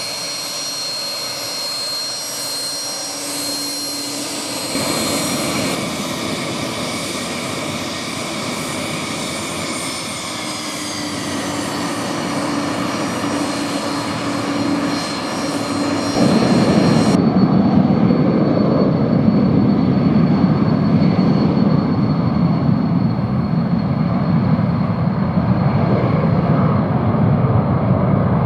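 The twin turbofan engines of a Cessna UC-35A Citation business jet run with a high-pitched whine over a jet rush. About 16 seconds in, the noise turns suddenly louder and deeper, and the highest whine drops away.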